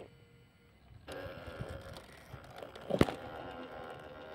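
Traxxas TRX-4 RC crawler driving: a steady whine of its electric motor and gears starts about a second in, with one sharp knock about three seconds in.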